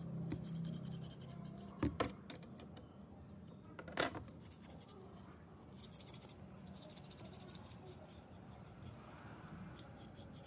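Steel hedge shears, their pivot bolt freshly tightened, being opened and closed: a few metal clicks about two seconds in, a louder ringing metal clink about four seconds in, then runs of fine scissor-blade snicks as the blades slide past each other.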